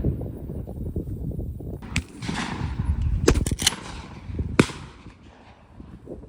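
Shotgun shots during a dove hunt: about five reports, one about two seconds in, three in quick succession around the middle, and another a second later, over a steady low rumble.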